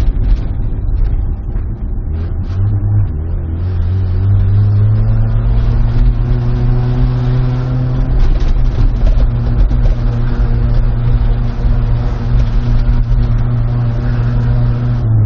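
Car engine with a loud exhaust accelerating: the engine note rises about three seconds in, then holds at steady, high revs as a deep, continuous drone.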